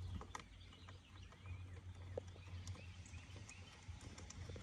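Faint clicks and taps of small screws and metal parts being handled as a steering-wheel hub is screwed on, over a low steady hum, with faint bird chirps.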